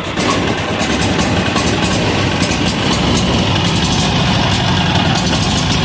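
A 186FA single-cylinder, air-cooled diesel engine running steadily.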